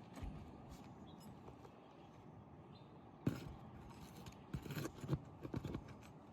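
Irregular knocks, taps and scrapes of hands and tools working loose asphalt shingles on a roof, with a sharp knock about three seconds in and a quick run of taps about a second later.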